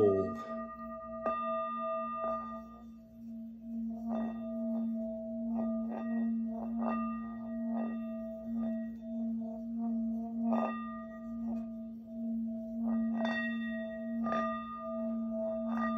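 Large hand-hammered singing bowl ringing with a deep, steady hum and several higher overtones, its loudness swelling and fading in a slow wobble. Faint clicks come now and then.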